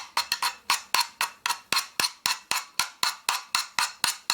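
Spear & Jackson half-round hand file being worked in quick, even strokes, about four a second, across the freshly cut end of a metal roller pole, taking off the rough edges.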